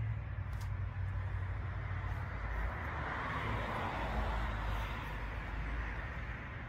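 A car passing on the road, its tyre and engine noise swelling in the middle and fading away, over a steady low rumble.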